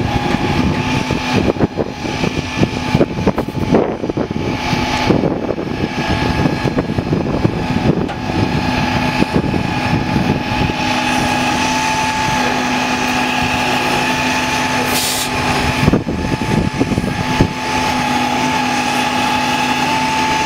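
Heavy-duty rotator tow truck's diesel engine running steadily with a constant whine. It is driving the boom winches that are lifting a rolled-over cement truck back onto its wheels. A brief hiss comes about three quarters of the way through.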